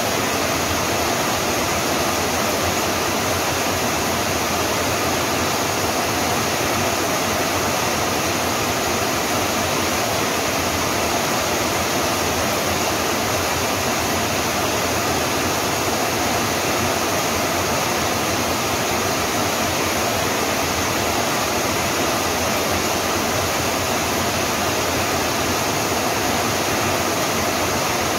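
Rain falling steadily, an even, unbroken hiss.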